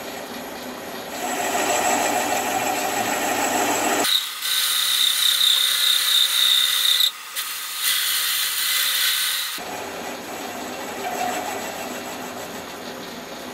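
Metal lathe facing an aluminium casting with a large nose-radius tool: steady cutting noise, and from about four seconds in a high-pitched ringing squeal that breaks off briefly and stops a couple of seconds later. The squeal is tool chatter, which a tool with a big radius tends to give.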